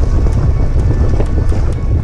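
Wind buffeting the microphone of a camera on a moving mountain bike, with heavy low rumble and a few small rattling clicks from the bike on the trail.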